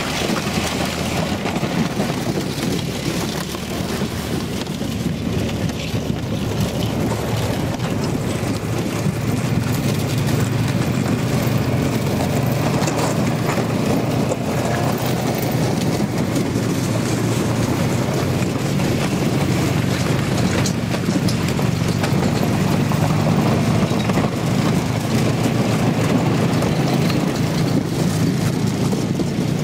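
Side-by-side utility vehicle driving over lake ice: a steady engine drone mixed with rumbling tyre noise and wind on the microphone.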